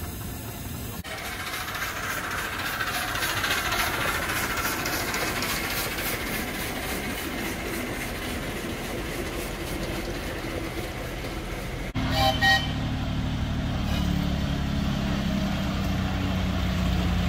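Miniature railway trains running: rolling train noise with a fast, regular ticking, then a short toot and a steady low engine drone.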